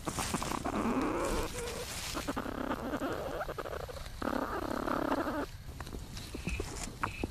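Platypuses moving in their nesting chamber: rustling and scraping in the nest material, with two rough, growl-like bursts of about a second each, the first near the start and the second just past the middle.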